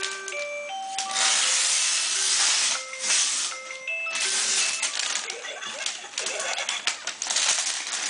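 Electronic toy ice cream truck playing a tinny tune of plain single notes, with wrapping paper and tissue paper crinkling loudly as it is torn and pulled. The tune stops about four and a half seconds in, and the paper rustling carries on.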